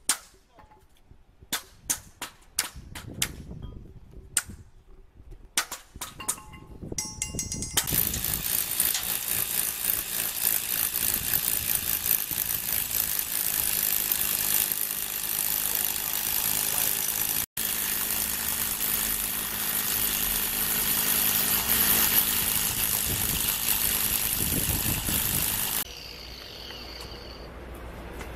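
A hammer striking a galvanized steel floor track laid on a concrete slab: a run of sharp, separate metallic blows. Then a power tool runs steadily and loudly for most of the rest, stopping near the end.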